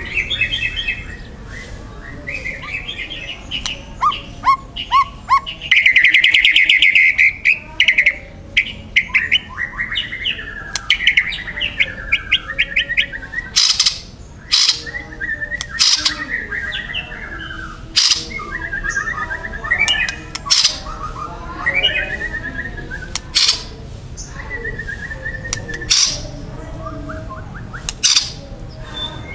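White-rumped shama (murai batu) in full song: a varied run of whistled phrases, rising and falling glides and fast trills, broken from about halfway through by loud sharp clicks roughly every two seconds.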